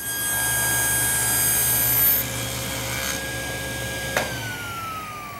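Table saw running at full speed and ripping a strip off a hardwood blank, the cutting noise ending a little over two seconds in. About four seconds in, a click, and the motor's whine falls steadily as the blade winds down after being switched off.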